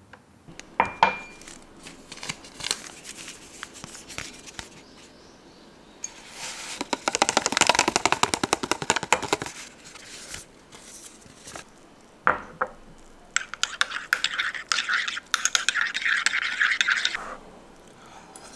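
Making a cup of instant coffee: taps and clinks against a ceramic cup and sachets handled, with two stretches of steady rushing as liquid is poured into the cup.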